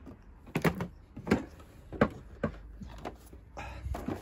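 Plastic latches and lid of a Bosch L-Boxx tool case being unclipped and opened: a series of sharp plastic clicks and knocks, then a short rustle near the end as the contents are handled.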